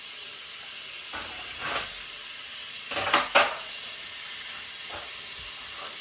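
Tap water running steadily into a sink while a child washes his hands, with two brief louder moments about one and three seconds in.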